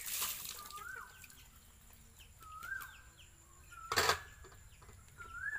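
Water splashing as an aluminium pot is rinsed, then one sharp metal clank about four seconds in as a wok is set down on a stack of aluminium pots. A bird repeats a short rising call about every second and a half.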